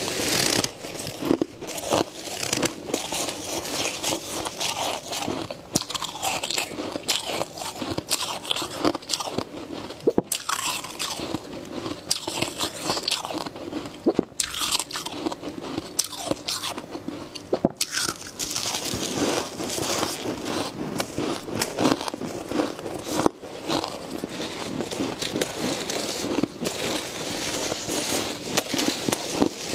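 Crunching of snowy freezer frost: gloved hands scooping and squeezing the powdery frost, and bites and chewing of packed frost, in a dense run of irregular crunches.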